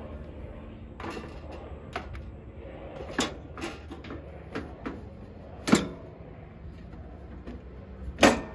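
Sheet-metal dead-front cover of an Eaton CH breaker panel being fitted back on: scattered metal clicks and clanks, with two louder knocks about two-thirds of the way through and again near the end.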